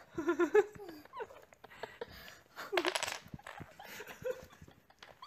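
A tower of wooden Jenga blocks topples, and the blocks clatter down onto the wooden table and floor in a run of short knocks. A person laughs over it, with a louder burst of laughter about three seconds in.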